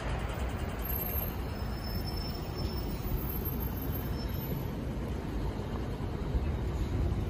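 Steady city street traffic noise: a low, even rumble with no single vehicle standing out.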